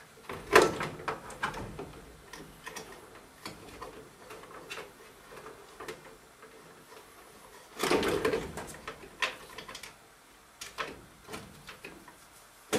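Scattered clicks, knocks and rustles of wires being pushed and tucked back into a furnace's sheet-metal electrical compartment, with a sharp knock about half a second in and a busier cluster of knocks around eight seconds in.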